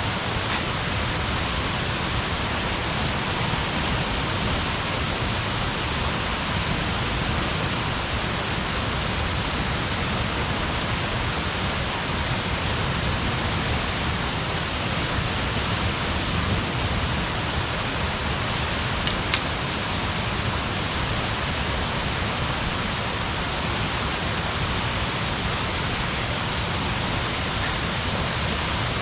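Steady rushing noise, even throughout, with a faint click or two, one about two-thirds of the way through.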